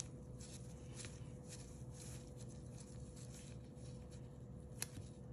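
Faint handling sounds of gloved hands pressing a 3D-printed cookie cutter into soft cookie dough and lifting it: scattered light taps and rustles, with one sharper click near the end. A faint steady hum runs underneath.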